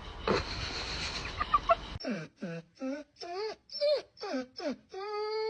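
German Shepherd vocalising: a run of about eight short whining calls that slide up and down in pitch, then a long, steady howl starting near the end.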